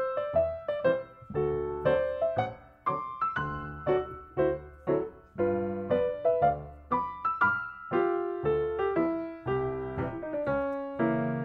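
Background piano music: single notes and chords struck a few times a second, each dying away.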